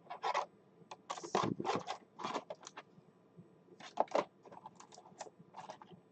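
Trading cards and plastic card holders being handled: irregular light clicks and short scrapes as a card is moved and slid into a rigid plastic top loader.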